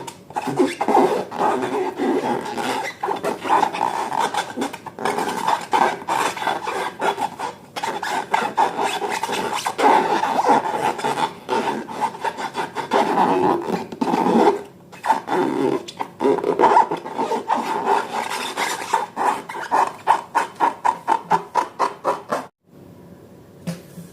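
Slime being squeezed and kneaded by hand, with a run of wet squelching and crackling pops that quicken to a few a second near the end, then stop abruptly.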